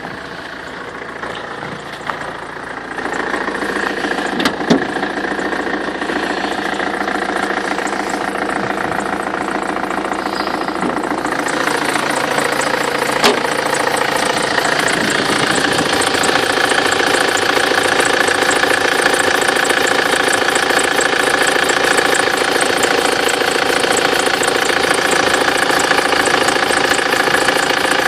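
BMW N47D20 2.0-litre four-cylinder diesel idling with its accessory drive belt whistling. The sound grows louder over the first half and then holds steady.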